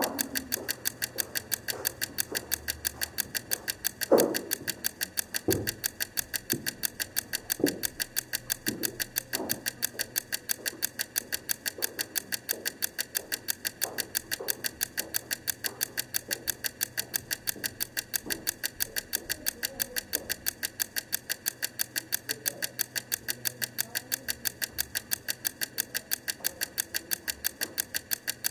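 Clockwork wind-up egg timer ticking evenly and quickly, about four ticks a second. A few louder, duller knocks are mixed in, the loudest about four seconds in.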